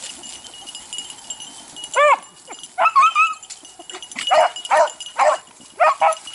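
Beagles baying on a rabbit's scent: about nine short, pitched yelps in a quick run, starting about two seconds in.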